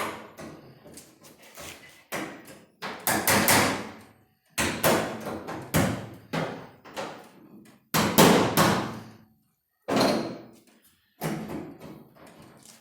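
Hammer blows on the sheet-metal quarter panel near the trunk lip, about a dozen sharp strikes at irregular intervals, each ringing briefly, as the panel is worked down into place.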